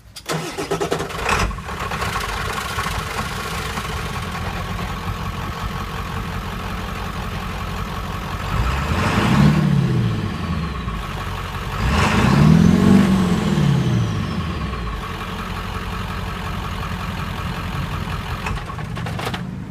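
1994 Ford F-350's 7.3 PowerStroke V8 turbo diesel running with its muffler and tailpipe removed, exhausting through only the catalytic converter and about two feet of pipe. It idles, is blipped twice to higher revs about halfway through, and settles back to idle.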